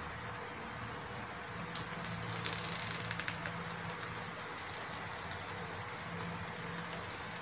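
Steady hiss of a portable gas stove burner on a low flame under a foil parcel, with a faint low hum. A few faint crackles and ticks come about two to three and a half seconds in, as the fish heats toward the boil inside the foil.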